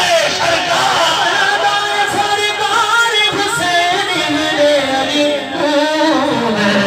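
A man singing a devotional naqabat in praise of Ali and Hussain, holding long, ornamented notes that bend in pitch and glide down near the end.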